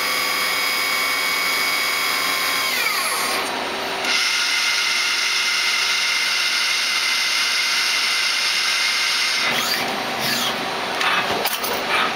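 Citizen M16 CNC Swiss-type lathe running through a program to show its movements: a steady high whine from its spinning spindles and tools winds down about three seconds in, and a new whine starts a second later. Near the end the whine gives way to short whirs that rise and fall and a run of clicks as the machine moves on to its next step.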